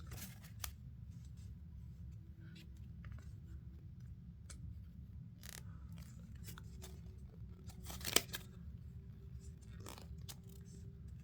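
Sheet of origami paper being folded and creased by hand: scattered soft rustles and crinkles, the sharpest crackle about eight seconds in, over a faint low hum.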